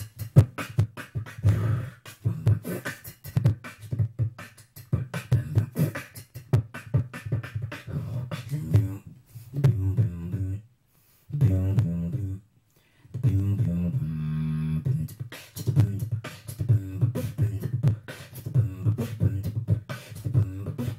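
Beatboxing into a handheld microphone: a fast rhythm of mouth-made drum hits over a strong low bass, broken by two short silences about eleven and twelve and a half seconds in, then a held humming bass note for about two seconds.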